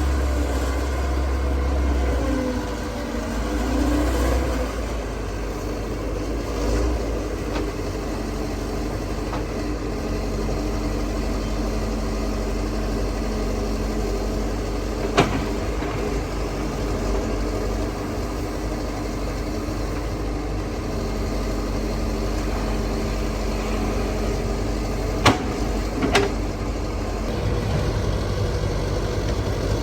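Excavator's diesel engine running steadily, its pitch shifting a little in the first few seconds. Three sharp knocks sound over it, one about halfway through and two close together near the end.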